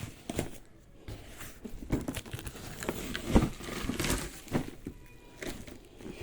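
Packaging being handled during an unboxing: irregular rustles, taps and knocks of cardboard and wrapping, with a louder knock about three and a half seconds in.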